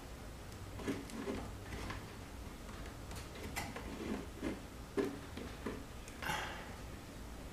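Hand wire strippers at work on a red hookup wire, baring a section in the middle of the wire: a scattering of small clicks from the stripper jaws and the handled wire. A sharp click comes about three and a half seconds in, and a short scraping hiss a little after six seconds.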